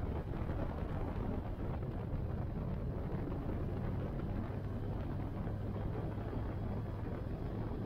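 Cruiser motorcycle engine running at a steady cruising speed with a low, even drone, mixed with wind noise on the microphone.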